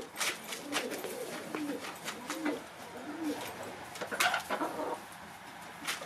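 Leghorn and Welsummer bantam hens clucking softly in short, low, bending murmurs, with scattered sharp clicks. One louder call comes about four seconds in.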